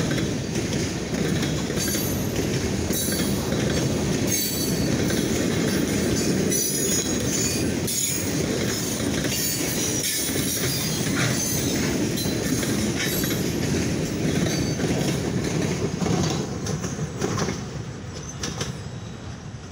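Freight train cars rolling steadily past, a loud rumble of steel wheels on rail with repeated knocks and clacks. It grows quieter over the last few seconds as the train moves off.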